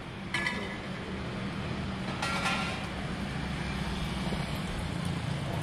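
A motor vehicle's engine running steadily with a low rumble, with two short crisp rustles about half a second and about two seconds in.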